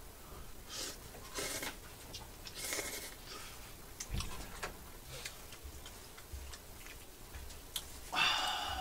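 Instant noodles slurped and chewed close to the microphone: a few short slurps in the first three seconds, small sharp clicks of chewing, and a louder, longer noise just before the end.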